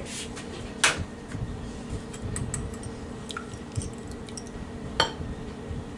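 Kitchen handling sounds while an egg is readied for breading: two sharp knocks, one about a second in and one near the end, with light scattered clinks of a fork in a glass bowl between them, over a steady low hum.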